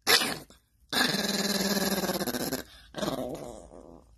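Small long-haired dog growling: a short growl at the start, a long drawn-out growl about a second in, and a third that fades away near the end. It is grumbling at being woken up.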